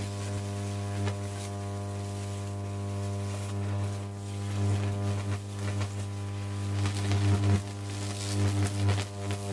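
2.3 kV electric arc burning through a tree branch: a steady deep mains-frequency buzz with sharp crackles. The crackles come more often in the last few seconds.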